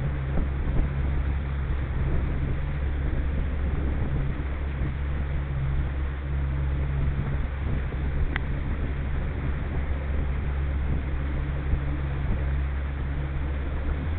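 Outboard motor running at a steady cruising speed, pushing a G3 V167 aluminium boat, with wind and water rushing past the hull. The engine note holds steady throughout.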